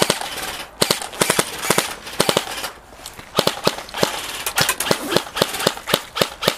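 Airsoft electric rifles firing in short bursts and single shots: sharp clicking snaps in quick runs, broken by brief pauses.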